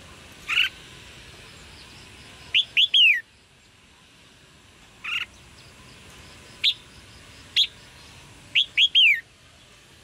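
Red-whiskered bulbul calling: short, bright single notes a second or two apart, and twice a quick three-note phrase whose last note falls, about three seconds in and near the end.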